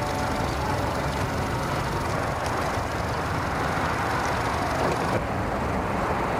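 Steady engine noise of idling motors, an outboard motor and vehicle engines, with a slight change in the sound about five seconds in.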